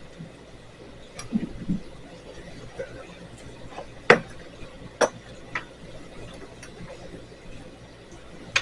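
A few separate sharp metallic clicks and knocks of fence hardware being handled and fitted onto a hinge bolt, the clearest about four and five seconds in.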